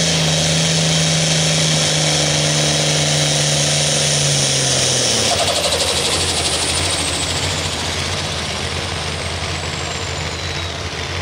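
Turbocharged diesel engine of a red International Harvester pulling tractor running hard under load as it drags the weight sled. A steady drone holds for about five seconds, then the tone shifts and eases a little while a high whine slowly falls in pitch.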